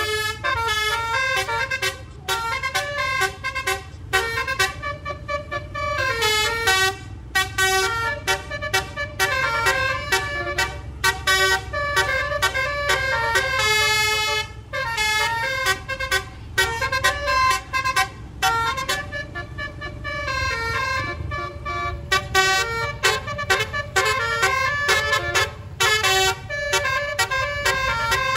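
Bus basuri horn, the multi-tone 'telolet' musical horn, playing a tune note by note with short breaks, over a steady low vehicle rumble.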